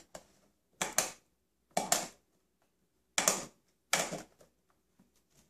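Small hands slapping and clacking on a plastic baby activity table: four short clattering bursts at uneven gaps of roughly a second.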